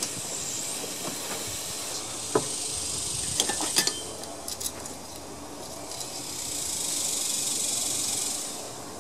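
Aerosol carburetor cleaner hissing briefly through its straw onto a small Tecumseh carburetor part, followed by a few light clicks of metal parts and tools. A steady high hiss swells later and fades near the end.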